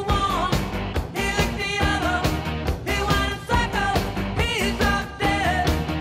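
Background music: a rock song with a singing voice over a steady drum beat.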